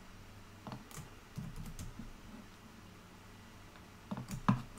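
Computer keyboard keys tapped a few at a time while working shortcuts, with the loudest cluster of taps near the end.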